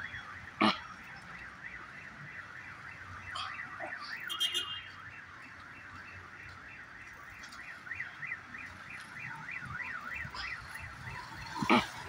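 A car alarm siren wailing, its pitch sweeping rapidly up and down over and over. A sharp knock sounds about a second in and a brief loud noise near the end.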